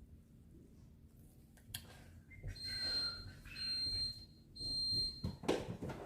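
An electronic beeper sounds three long, high-pitched beeps, each just under a second long, with short gaps between them.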